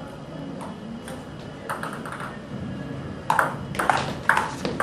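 Table tennis ball being struck by paddles and bouncing on the table in a rally: a few light ping-like hits about two seconds in, then a quick run of sharp hits about every half second near the end.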